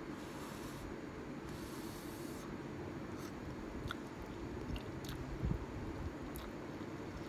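Ramen noodles being slurped into the mouth in two hissing draws during the first couple of seconds, then chewed with small wet ticks. A faint steady hum runs underneath.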